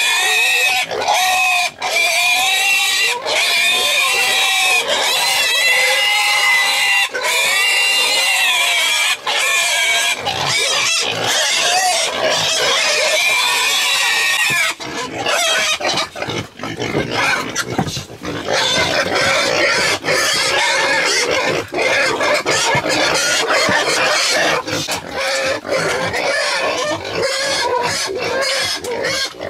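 Pigs squealing loudly and almost without pause, high calls that waver in pitch. About halfway through the squealing turns rougher and noisier.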